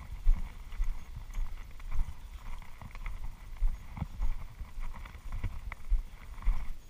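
Walking footsteps on grass, heard as uneven low thumps about twice a second as the action camera is carried and jostled, with faint rustling.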